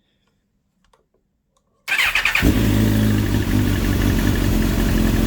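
Suzuki GSX-R1000 K8's inline-four engine cranking briefly on the starter and catching about two seconds in, then idling steadily. The owner thinks it sounds as if it is not running on all cylinders.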